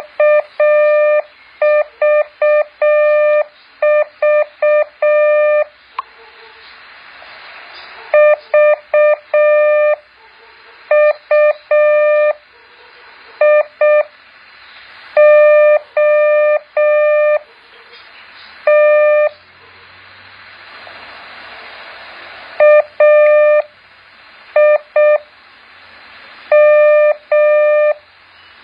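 Morse code practice tone: a single steady-pitched beep keyed on and off in dots and dashes, sent in short groups of characters with pauses of one to two seconds between groups, over a steady background hiss.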